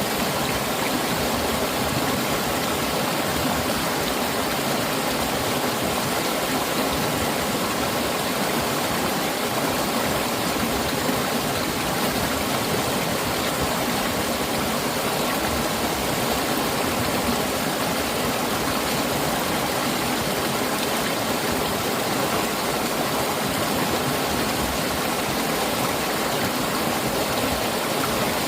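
Mountain stream water rushing and splashing over rocks, a steady continuous flow.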